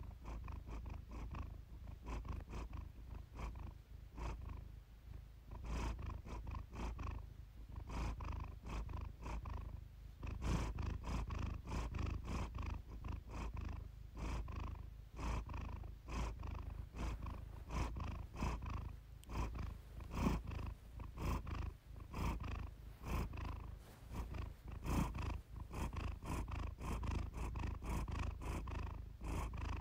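Siamese cat purring steadily, a continuous low purr that swells and eases every second or two.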